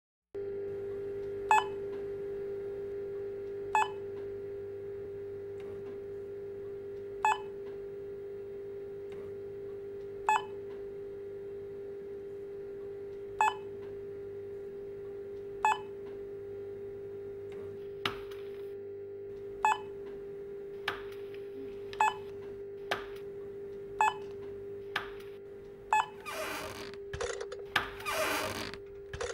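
Short electronic checkout-scanner beeps, one every two to three seconds at first and coming faster and faster, over a steady low hum. Near the end a few longer scraping noises come in.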